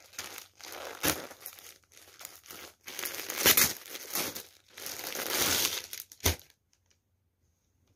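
Clear plastic clothing bag crinkling and rustling as it is handled and opened to take out a garment, with a sharp knock near the end; the rustling stops about six and a half seconds in.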